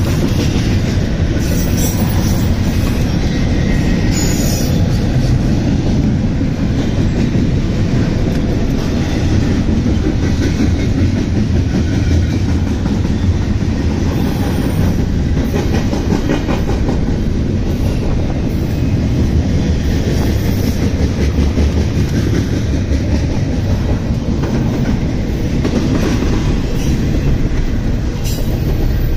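CSX double-stack intermodal freight train rolling past: a steady loud rumble of wheels on rail, with scattered clicks of the wheels over rail joints.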